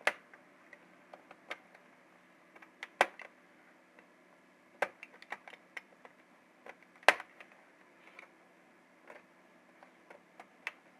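Irregular small plastic clicks and snaps as a Lenovo G580 laptop keyboard is pried out of its frame with a thin cutter blade, its latches letting go one by one, with louder snaps about three and seven seconds in.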